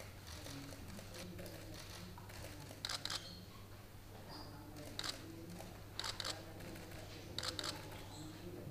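Camera shutters firing in short rapid bursts of clicks, four or five bursts a second or two apart, over a faint steady low hum of room tone.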